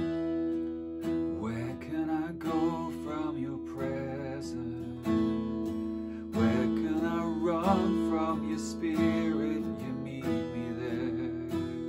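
Acoustic guitar strummed alongside a man singing a slow worship song; the voice comes in about a second in, with a light vibrato on held notes.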